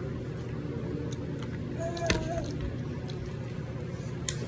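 Close-up eating sounds: scattered wet mouth clicks and smacks while chewing watermelon and burger, over a steady low background hum, with one sharper click about two seconds in.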